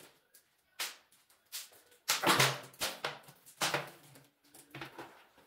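Plastic drink bottle swung and shaken, throwing liquid onto a tiled floor in a string of short, sharp splashes and plastic crackles, loudest a little past two seconds in.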